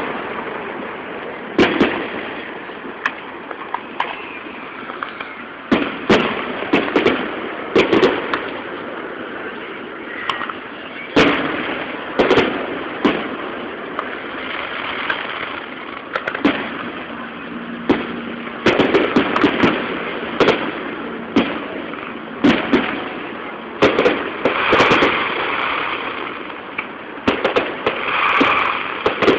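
Aerial firework shells bursting in a display: a long run of sharp bangs at irregular intervals, often one every second or so, over a steady noisy background between them.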